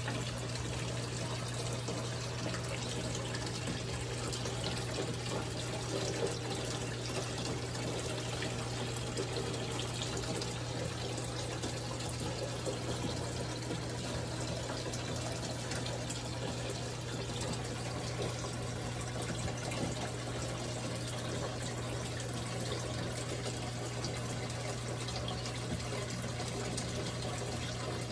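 Small decorative water fountain trickling and splashing steadily, with a steady low hum underneath.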